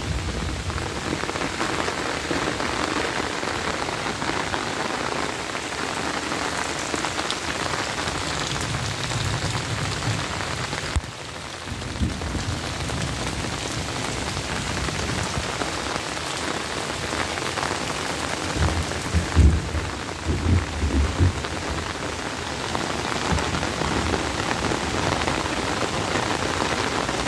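Rain falling steadily on leaves and waterlogged ground, a continuous hiss. About two-thirds of the way through come a few low thumps.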